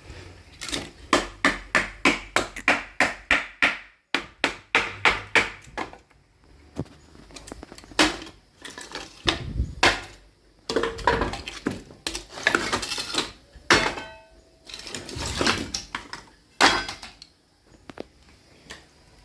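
Sledgehammer striking a steel chisel to split hard wood: a fast run of sharp metallic blows at about four a second, a shorter run, then louder, more irregular strikes, one with a brief ring. The blows stop a couple of seconds before the end.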